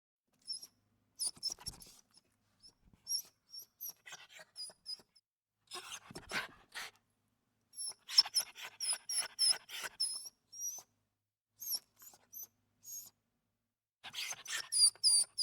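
Small dog whimpering: a series of short, very high-pitched whines coming in clusters with pauses between them.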